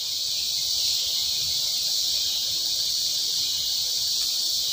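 Steady, high-pitched chorus of insects droning continuously in the woods at dusk.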